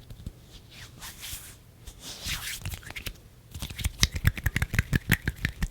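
Bare hands worked close to the microphone: soft swishing rubs for the first few seconds, then from about three and a half seconds in a rapid run of sharp clicks, several a second, from fingers tapping and fluttering against each other.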